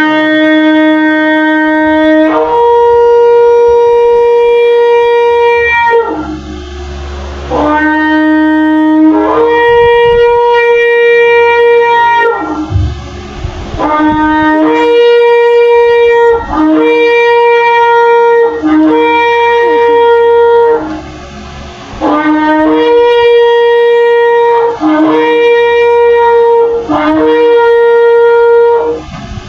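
Shofar blown in a series of loud blasts, each rising from a lower note to a higher one. The first blasts are long, and shorter blasts follow with brief breaks between them.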